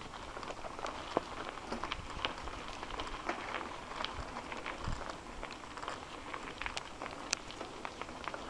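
Mountain bike rolling over a dirt trail: a steady hiss of tyres on dirt, with many small irregular clicks and rattles from the bike.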